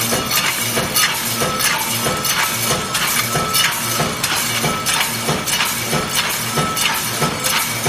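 Tinplate easy-open can ends clattering through the rod guides and onto the collecting table of a running shell production line: a dense, uneven metallic clinking, several clicks a second, over a steady machine hum.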